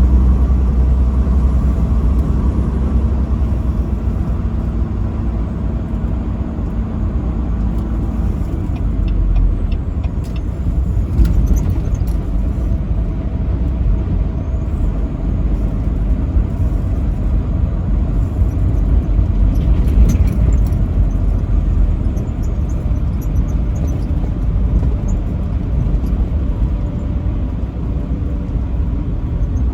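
Semi-truck driving on the highway: a steady low engine and road rumble, with a few faint ticks and clicks in the middle.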